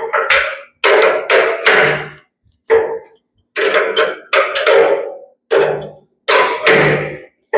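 Hammer blows on the steel of a skid-steer grapple attachment, about two a second with a short pause partway through, each strike leaving the metal ringing briefly.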